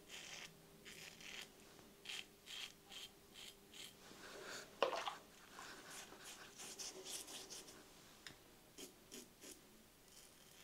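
King C Gillette double-edge safety razor scraping through beard stubble in short, faint strokes during a with-the-grain pass. About halfway through there is one brief louder sound that drops in pitch.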